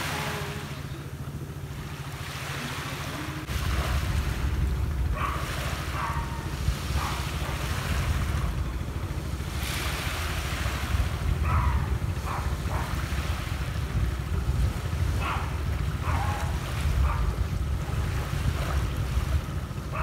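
Small waves washing onto a beach in repeated surges that swell and ebb every few seconds, with a low rumble of wind on the microphone that grows louder about three and a half seconds in.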